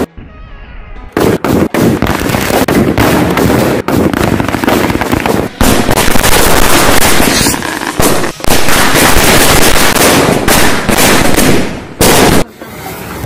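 Firecrackers going off. A quick series of sharp bangs starts about a second in and runs together into long stretches of loud, continuous crackling, then cuts off sharply near the end.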